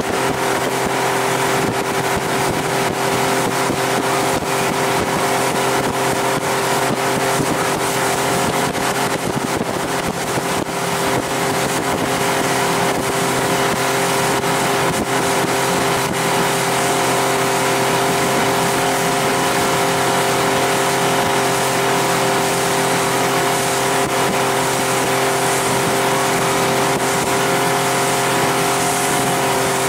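Honda 50 hp four-stroke outboard motor running steadily with the boat under way, a constant engine tone over a rush of wind and water.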